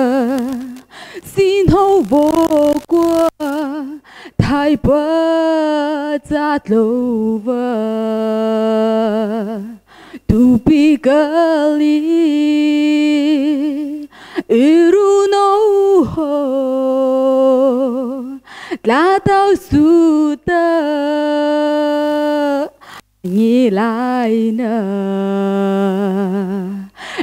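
A woman singing solo and unaccompanied into a microphone, in phrases a few seconds long with short breaths between them and long notes held with vibrato.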